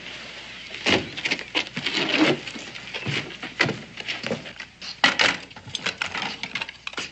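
Irregular knocks and clatter of people moving about on a wooden floor, with the clink of crockery plates being set down on a wooden table in the second half.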